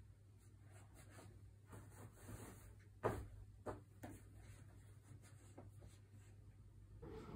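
Faint rustling of a paperback's pages and the bedding as the book is handled and a page turned, with two louder rustles about three seconds in, over a low steady room hum.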